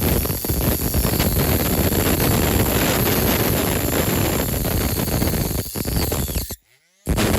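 Small power tool cutting into the diecast metal body of a toy car, a steady grinding whine that drops out for a moment near the end.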